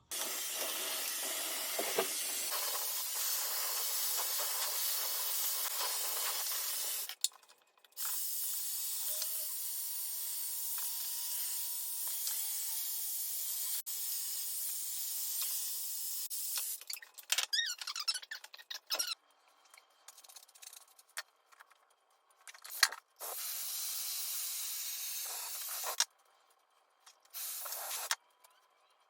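Hair dryer blowing, a steady rushing hiss of air that stops and starts several times, with long breaks in the middle and near the end and a few sharp clicks in the gaps.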